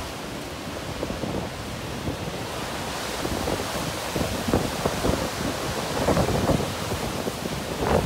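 Near hurricane-force wind gusts rushing and buffeting the microphone, with irregular low thumps of wind hitting the mic. The gusts build from about three seconds in, with a strong gust near the end.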